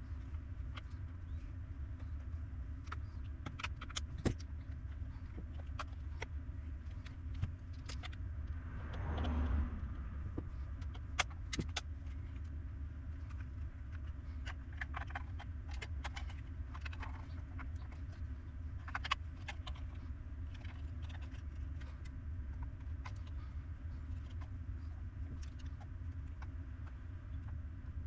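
Steady low hum with scattered light clicks and taps of small parts and tools being handled, and a brief rustling swell about nine seconds in.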